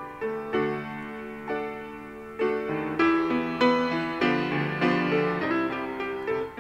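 Background music: a piano passage with no singing, notes and chords struck one after another in a slow, even rhythm, each dying away before the next.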